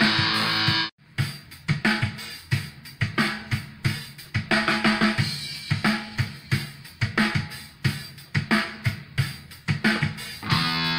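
Background rock music: the guitar band stops abruptly about a second in, leaving a drum kit playing a steady beat alone, and the guitars come back in near the end.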